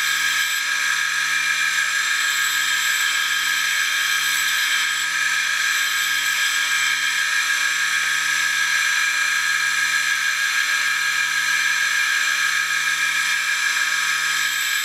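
Small electric grinder running while the steel end of a lathe parting tool is held against its wheel and ground down: a steady grinding hiss over the motor's hum, with a slow regular pulsing low down. The tool's worn tip is being ground back to make a seat for a brazed carbide tip.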